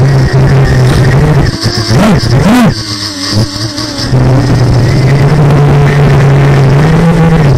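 Quadcopter's brushless motors spinning DAL 6045 tri-blade propellers: a steady buzzing hum, with two quick throttle blips, each rising and falling in pitch, about two seconds in, a brief drop in throttle just after, then a steady hum again.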